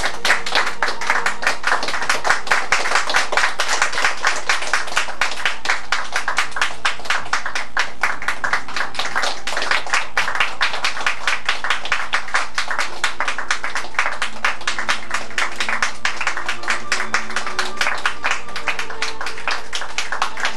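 Audience and actors applauding at a stage play's curtain call: steady, dense handclapping.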